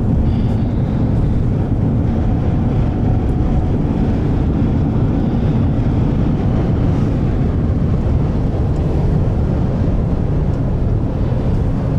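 Steady road and engine noise of a moving car, heard from inside the cabin: an even, low rumble.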